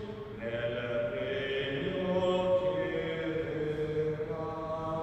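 A man chanting a prayer of the Mass, holding each syllable on a steady pitch and moving between a few notes.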